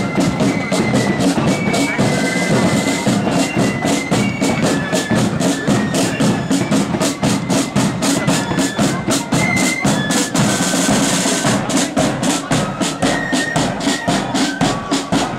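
Marching flute band playing a march: a high flute melody over rapid side-drum strokes and a bass drum beat.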